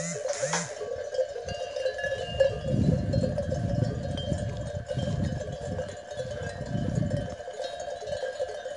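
Bells on a grazing flock of sheep, jingling steadily. A low irregular rumble on the microphone runs from about two and a half seconds in to about seven and a half.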